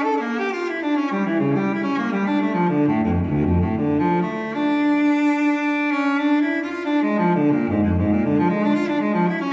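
Background instrumental music with a string-like melody moving in steps over sustained notes, and low bass notes coming in twice.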